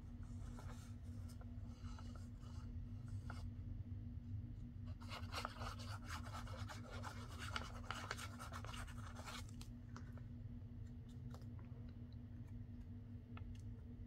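Metal tip of a fine-nozzle glue bottle scratching across paper as glue is laid on, dense for a few seconds midway, with light paper handling ticks before and after. A steady low hum sits underneath.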